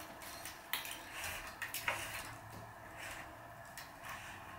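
Racquet string being handled and drawn by hand through the strung mains of a racquetball racquet on a stringing machine: light rustling and rubbing with a few sharp ticks as the string slips past the other strings, the most distinct about a second in and just under two seconds in.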